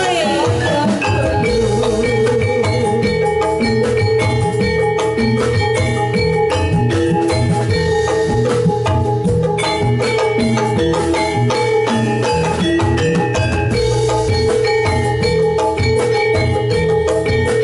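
Javanese gamelan music for jathilan horse dance, played loud through a sound system: struck metallophones ringing over drums in a steady, dense rhythm.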